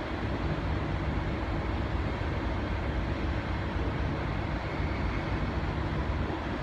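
Diesel locomotive engine of a V/Line N class, its EMD 645 V12 two-stroke, running steadily at the platform, with a faint low tone that comes and goes twice.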